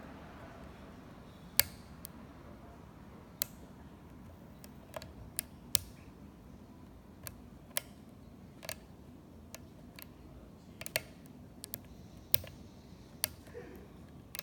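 Lock pick and tension wrench working a cheap, stubborn lock: irregular sharp metal clicks and ticks, about twenty of them, the loudest about a second and a half in.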